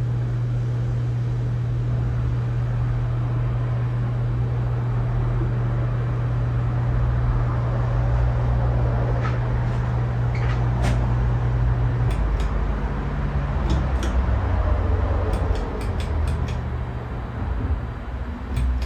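Casablanca Wailea ceiling fan running on a replacement start/run capacitor: a steady low motor hum over a rumble of moving air. About two-thirds of the way through the hum drops away, and a series of sharp clicks follows.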